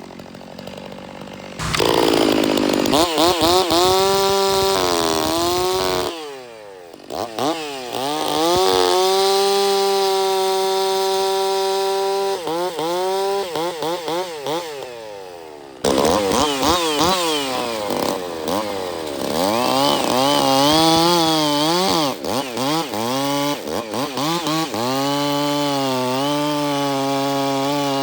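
Stihl MS460 two-stroke chainsaw running at high revs, revving up and down and cutting firewood, its pitch held steady at full throttle for stretches and sagging under load. The sound changes abruptly twice.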